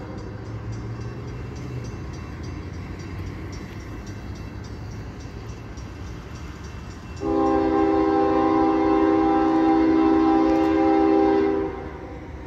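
First-generation Nathan K5HL five-chime air horn on a GE ES40DC diesel locomotive sounding one long blast of about four seconds, starting about seven seconds in and cutting off sharply. Before the blast, only the low rumble of the approaching locomotive is heard.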